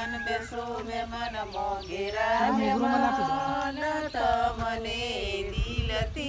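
Village women singing a traditional welcome song together, a chant-like melody with long held notes.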